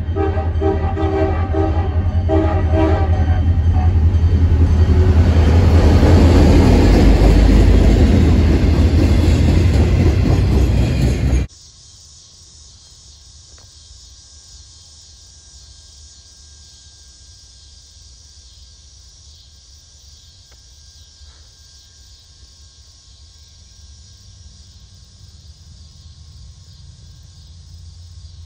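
Diesel freight locomotive blowing its multi-note air horn for the first few seconds, then loud engine and wheel noise that swells as the train comes close. It cuts off suddenly about eleven seconds in, giving way to a distant train's quiet, steady low rumble.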